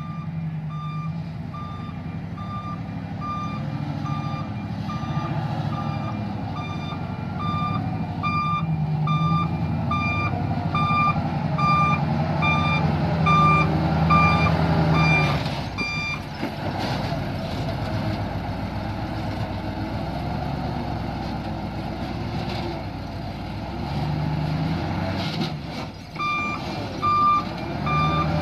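Reversing alarm on a Nissan Diesel V8 dump truck beeping about twice a second over the truck's running diesel engine. The beeping stops about halfway through and starts again near the end. The engine is loudest shortly before the beeping stops.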